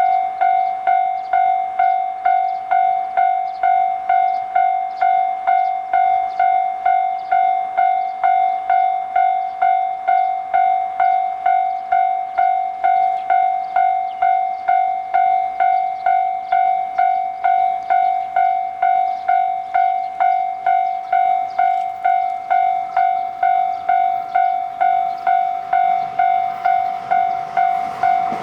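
Japanese level crossing warning bell ringing: a single electronic ding repeated about twice a second, each strike fading before the next. In the last second the rushing noise of an approaching train starts to build under it.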